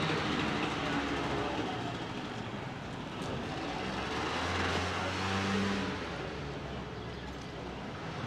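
City street traffic: car engines running and tyre noise, with an engine hum swelling about halfway through as a vehicle passes.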